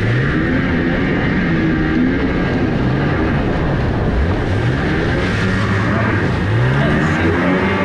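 Sea-Doo Rotax 578 two-stroke jet engine in a small jon boat revving up and down during hard turns, its pitch rising and falling several times, over rushing water and spray.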